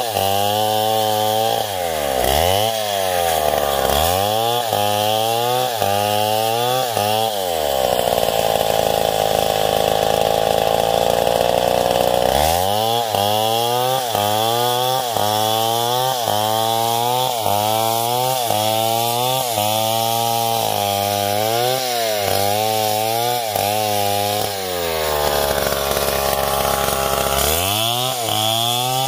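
Stihl MS070, a big single-cylinder two-stroke chainsaw, running at high revs while ripping lengthwise along a coconut palm log. Its engine speed dips and recovers about one and a half times a second as the chain bites into the wood. It holds a steady high pitch for a few seconds midway, and runs at a steadier, lower speed briefly near the end.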